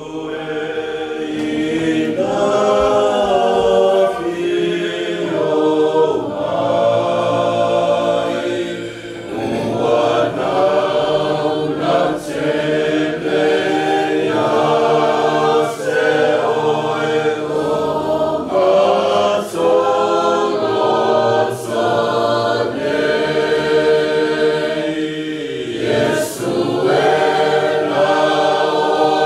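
Congregation singing a Samoan hymn together, a full body of voices carrying the tune line by line with short breaks between phrases.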